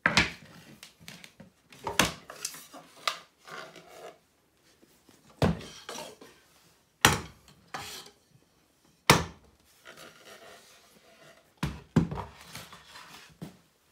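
Wooden drafting-table parts being handled and set down on the wooden top and floor: irregular sharp knocks of wood on wood, about eight in all, with softer rubbing and sliding between them.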